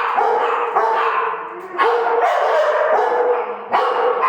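Dog vocalizing excitedly in a run of drawn-out, whining, howl-like calls, each about a second long and bending in pitch.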